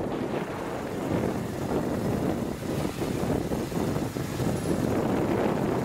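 Wind buffeting the microphone, with the motor scooter's engine and tyres running underneath, heard from the back of the moving scooter.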